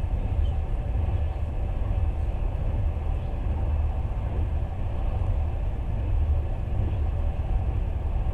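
Passenger train running along the line, a steady low rumble heard from inside the carriage.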